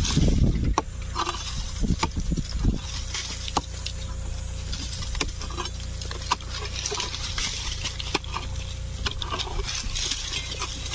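Irregular knocks, scrapes and thuds of hand digging in soil and brush, heaviest in the first few seconds, over a steady low rumble.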